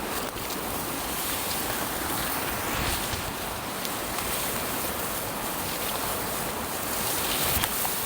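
Steady rushing of a mountain stream, an even wash of water noise with a few faint clicks near the end.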